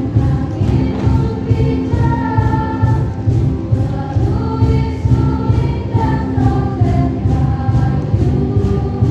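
Music with a steady beat and a melody line, played for a stage dance.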